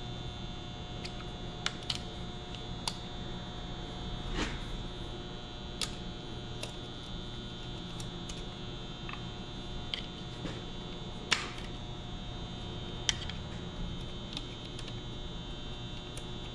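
Irregular, sharp metallic clicks and clinks as valve springs are pried and pulled out of the valve chamber of a Ford Model A four-cylinder flathead engine block with a screwdriver, over a steady background hum.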